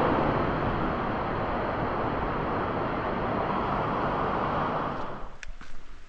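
Steady rush of a waterfall, loud and even, that cuts off suddenly about five seconds in, followed by a few footsteps on the trail.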